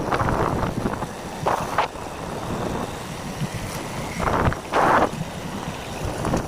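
Wind buffeting the microphone over the steady rumble of a moving vehicle, with several louder gusts.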